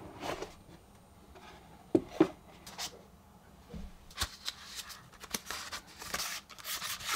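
Cardboard smartphone packaging being handled: a couple of sharp knocks about two seconds in as the box lid comes off and is set down, scattered taps, then scraping and rustling near the end as a card sleeve is slid open.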